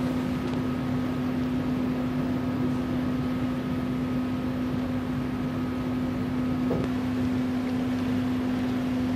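River cruise ship's engines running, a steady drone with a constant low hum; a fainter higher whine cuts off about seven seconds in.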